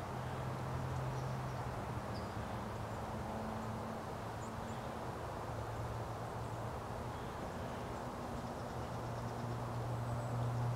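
Outdoor ambience: a steady low hum under an even rushing background noise, with a few faint, short, high bird chirps scattered through.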